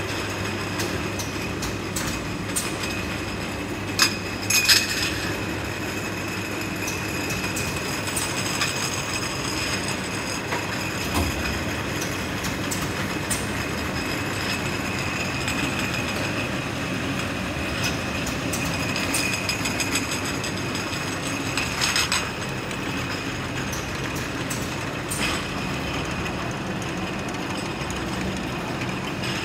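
Glass-jar washing and bottling machinery running: a steady mechanical rattle and hum with a high steady whine, broken by a few sharp clinks.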